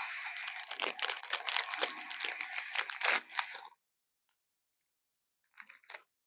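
Rasping, crackly creature roar sound effect for a Vastatosaurus rex, lasting about four seconds before cutting off abruptly, followed by a short scratchy burst near the end.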